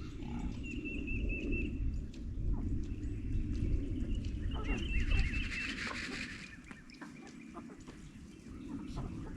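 Short, high, warbling bird calls, twice: about a second in and again near five seconds. A low rumbling noise underneath fades out at about six seconds.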